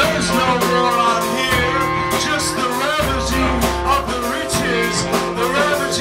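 Live rock band playing: electric guitar, bass and drums with a singer's voice over them, drums hitting steadily.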